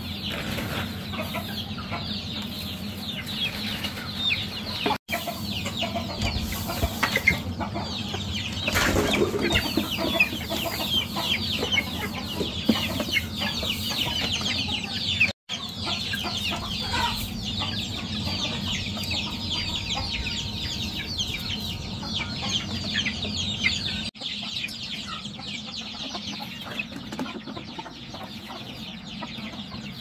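A crowd of young chicks peeping without pause: a dense chorus of short, high cheeps that fall in pitch, broken by two brief cut-outs.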